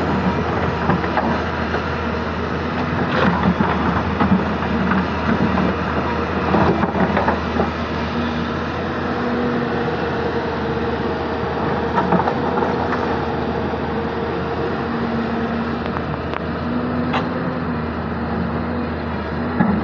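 Hyundai 220-9S crawler excavator working: its diesel engine runs steadily, with a tone that comes and goes as the hydraulics take load. Now and then a stone knocks sharply.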